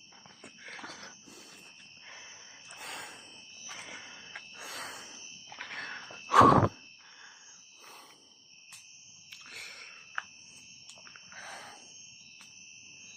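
Crickets chirring steadily at night, with soft irregular swells of noise and a few faint pops from the campfire. A short, loud burst comes about six seconds in.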